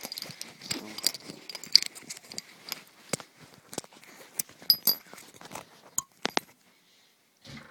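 Deactivated .303 rounds being worked out of a Lee-Enfield stripper clip by hand: irregular metallic clicks and clinks of the cartridges against the clip and each other, thinning out about five seconds in.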